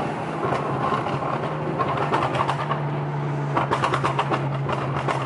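Alfa Romeo Giulia's tuned 2.0-litre turbocharged four-cylinder, heard from inside the cabin, drones steadily while its exhaust lets out rapid pops and crackles: a spell about two seconds in and a longer one from about three and a half seconds.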